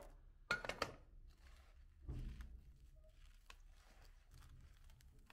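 Hand-cranked meat grinder crushing small hard candies: two short grating crunches in the first second and another about two seconds in, then faint rustling as hands sift through the ground candy powder.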